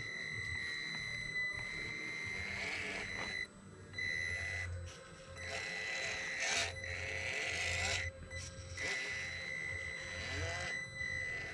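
Traxxas TRX4m RC crawler's electric drive under throttle: a steady high whine from the motor and speed control over a low gear drone. It stops briefly twice as the throttle is let off.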